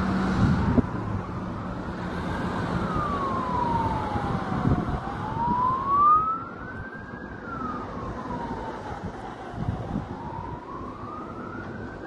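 Emergency vehicle siren wailing, its pitch rising and falling slowly, about one full sweep every five seconds. A few low thumps are heard beneath it.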